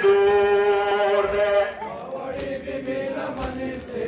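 Male voice chanting a Shia noha (Muharram lament), holding one long note at first, then quieter wavering chant, with a couple of sharp slaps from mourners beating their chests (matam).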